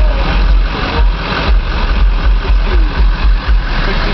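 Loud, deep bass from a truck's sixteen 12-inch MB Quart subwoofers driven by a Hifonics Cyclops amplifier, pounding about twice a second.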